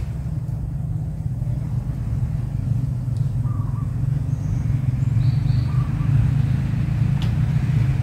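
Low steady motor rumble that slowly grows louder, with a few faint short chirps over it.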